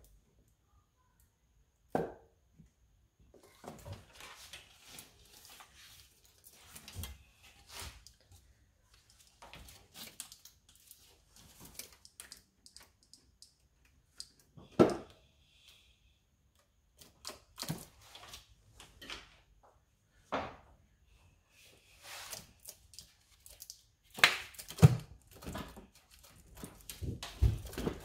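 Intermittent knocks, clinks and scrapes of metal as the aluminium cylinder head of a Toyota 2AZ engine is handled and settled on the block, with quieter handling noise between them. The sharpest thud comes about fifteen seconds in, and several more come near the end.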